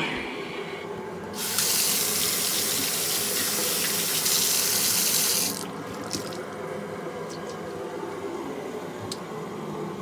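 Water tap turned on and running into a sink for about four seconds, then shut off suddenly. Something is being rinsed under the stream and washes off easily.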